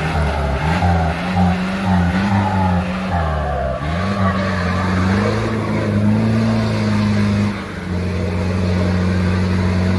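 Jeep's engine revving hard as it drives through mud, the pitch rising and falling with the throttle, then holding high and steady after a brief dip near the end.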